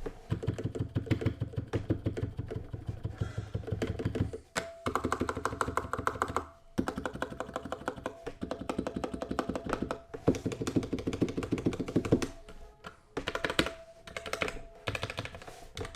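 Stabilized keys on an RK61 60% mechanical keyboard with lubed stabilizers being pressed over and over, a muted, dampened clacking in fast runs broken by short pauses.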